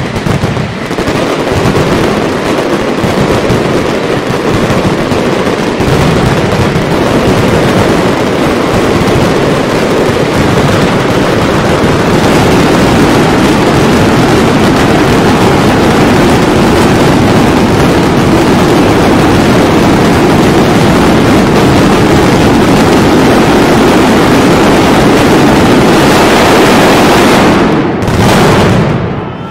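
Mascletà firecrackers exploding in an unbroken, very loud barrage, the bangs so dense they run together into one continuous din. It dips briefly and falls away at the very end.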